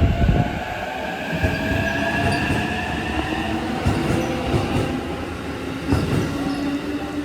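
Electric commuter train pulling out of the station, its motors whining in several tones that rise slowly in pitch as it gathers speed, over a low rumble of wheels, with a few knocks from the wheels over the rail joints.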